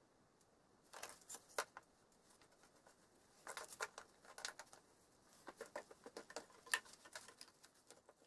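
Faint scattered clicks and taps of a hardboard routing template being set on the wooden stair stringers and fastened down with small clamps.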